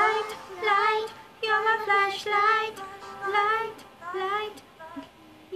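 A child and a woman singing along to a pop song: a string of short wordless sung phrases with wavering, bending pitch and brief gaps between them, trailing off near the end.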